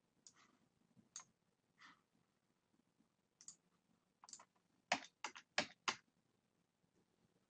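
Computer mouse clicks and keyboard key presses, scattered and faint, with a quick run of about five sharper clicks around five seconds in.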